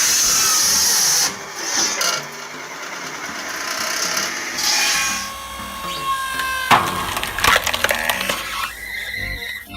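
A power saw cutting wood, loud and hissing at first and then dropping away sharply. Shifting machine noise follows, with a run of sharp knocks in the second half.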